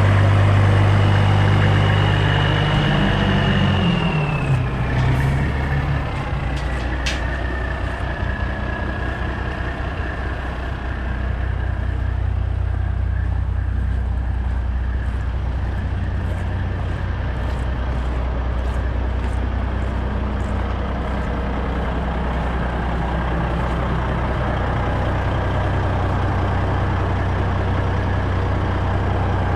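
A Ford LTL9000 dump truck's diesel engine runs at raised speed with a high whine. About three to four seconds in it drops back to a steady idle, and the whine falls in pitch with it and then holds steady.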